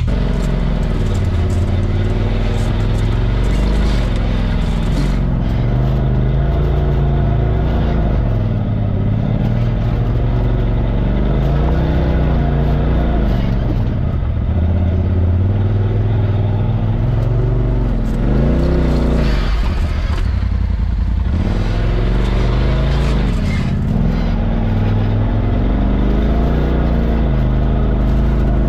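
Off-road vehicle engine revving up and down over and over, its pitch rising and falling every few seconds as it works along a rough trail.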